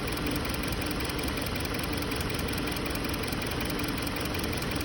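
2020 Hyundai Sonata engine idling steadily with a cylinder 2 misfire (code P0302), which the mechanic traces to a faulty fuel injector that does not close fully.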